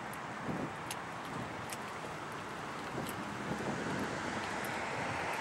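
Steady outdoor background noise, with wind and road traffic, getting a little louder about three seconds in, with a few faint clicks.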